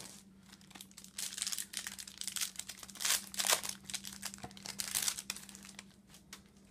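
Foil wrapper of a Bowman Chrome trading-card pack crinkling and rustling in a run of short bursts as the pack is torn open and the cards are slid out.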